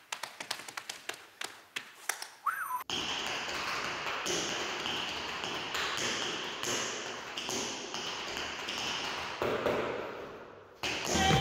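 Tap shoes striking the floor in quick, sharp taps. About three seconds in the sound changes to denser, near-continuous tapping over a steady hiss.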